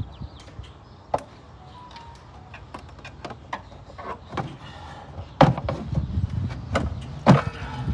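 Sharp clicks and knocks of hand tools and engine-bay parts being handled during disassembly, the loudest about a second in and twice near the end, over a steady low rumble.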